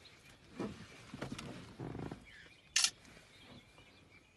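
Sloth bears grunting in a few short, rough bursts, with one brief high chirp about two-thirds of the way through.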